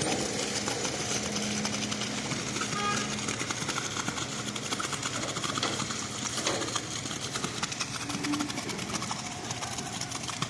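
Engine-driven machinery running steadily with a fast, even rattle, at a concrete pour.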